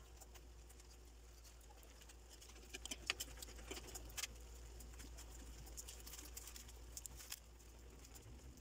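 Shrimp in a thick sauce simmering in a frying pan: faint, irregular bubbling and popping, with a few louder pops about three to four seconds in.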